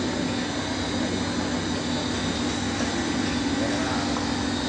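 Stretch film extrusion machines running: a steady machine drone with a strong hum and an even hiss, unchanging throughout.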